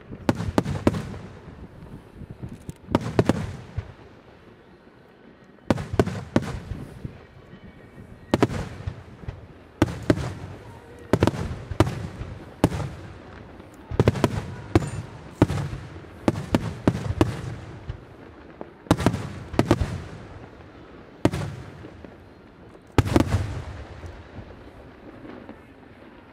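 Aerial firework shells bursting: a string of sharp bangs, often two or three in quick succession, each followed by a rolling echo, with a short lull about four seconds in.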